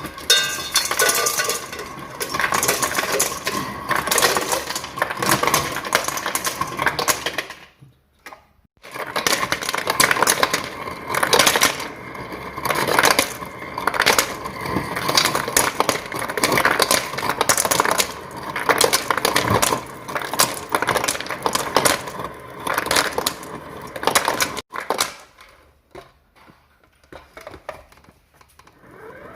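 Refrigerator ice dispenser dropping ice cubes: a dense clatter of cubes tumbling out in long runs, with a short pause about eight seconds in and only a few scattered clinks near the end.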